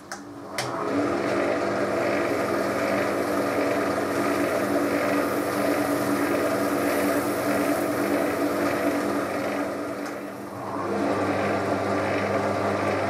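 Workshop power tool motor: a click or two, then it runs up and keeps running steadily, with a short dip in level about ten seconds in before it picks up again.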